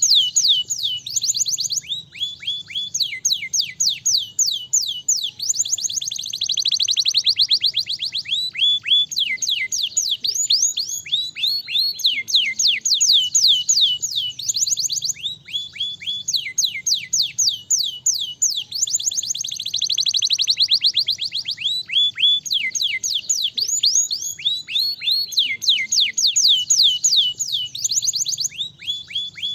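Domestic canary singing a long, fast song of rapid trills: strings of quick down-sliding notes, many a second, in phrases with short breaks between them.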